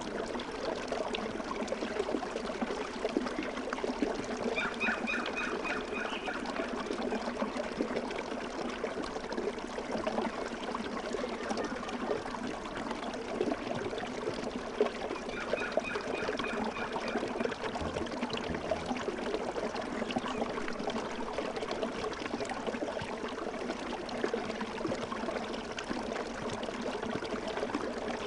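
A small stream flowing: a steady trickle and splash of running water. Twice a bird calls in a short, quick run of repeated notes, about five seconds in and again about fifteen seconds in.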